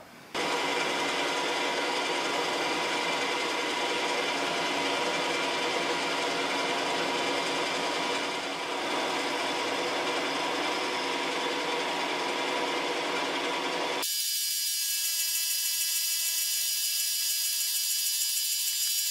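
Milling machine spindle running a 3.5 mm end mill that is cutting a pocket into a 4140 steel cutter body: a steady machine whine with the noise of the cut. About fourteen seconds in the sound changes abruptly to a thinner, higher whine with the low end gone.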